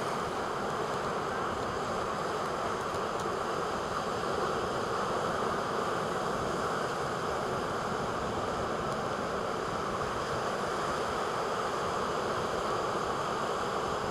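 Steady rushing noise of wind and surf, unbroken and even throughout.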